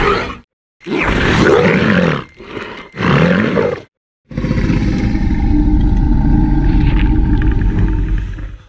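Indominus rex dinosaur roar and growl sound effects: two short roars with bending pitch about one and three seconds in, then a long, low, steady rumbling growl from about four seconds in.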